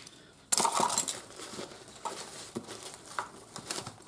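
Rustling and handling noise as camp cooking gear is packed into a cooking pot: a loud rustle starting about half a second in, then softer rustles with small clicks and knocks.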